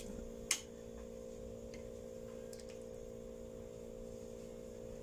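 A spoon clicks sharply once against the bowl about half a second in, then gives a few faint light ticks while stirring, over a steady low hum.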